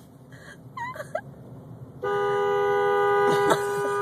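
A malfunctioning car horn suddenly starts blaring about halfway in and holds as one steady two-note blast; this is the broken horn going off on its own. A child's voice is briefly heard before and during it.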